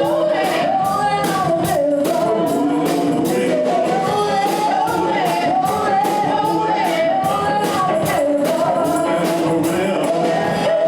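Live rock band playing with a lead vocal over a steady drum beat of about three hits a second.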